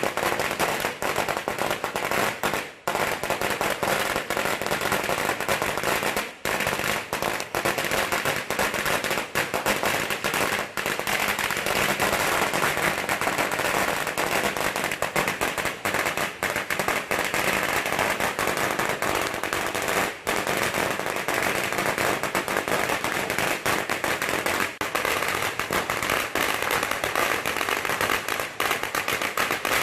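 A 108-foot string of red Chinese colour-flash firecrackers going off in a dense, continuous rapid crackle of bangs, with a few very brief gaps.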